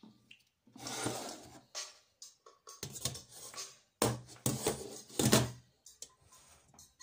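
A large domed metal cover handled and set down onto a metal bowl: irregular scraping, rattling and knocking of metal on metal, with the loudest knocks about four and five seconds in.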